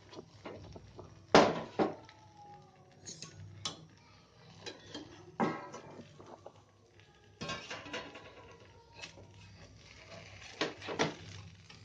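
Scattered clatters and knocks of a steel plate and a stone weight being lifted off a griddle and set down, the loudest about a second and a half in.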